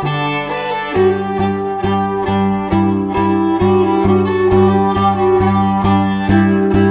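Fiddle playing a lilting folk melody, joined about a second in by a tambourin à cordes (string drum) struck with a stick in a steady beat, a little over two strikes a second, its strings giving a low drone under the tune.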